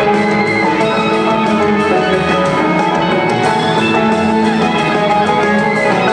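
Live rock band playing, with electric guitars, keyboards and drums, heard from the crowd.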